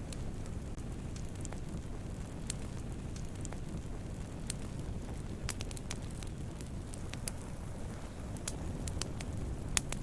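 Wood campfire burning: a steady low rumble of flame with scattered sharp crackles and pops, one louder pop near the end.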